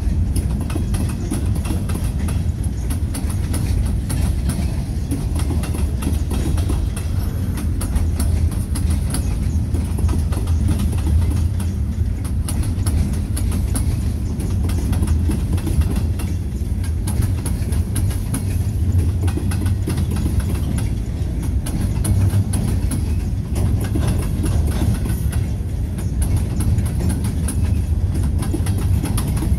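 Freight train gondola cars rolling past: a steady low rumble of steel wheels on rail, with repeated clicking and clacking as the wheels cross the rail joints.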